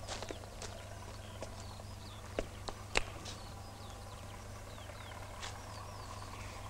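Quiet outdoor ambience: small birds chirping faintly, with a few sharp clicks, the strongest ones a little after two seconds in, over a steady low hum.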